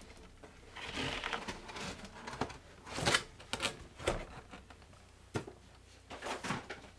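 Protective packing material and cardboard being handled and pulled apart, crinkling and rustling in irregular bursts, with a few sharp crackles and knocks.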